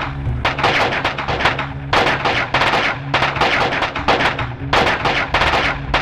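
Rapid gunfire from rifles and machine guns, many shots overlapping in bursts with short lulls between them.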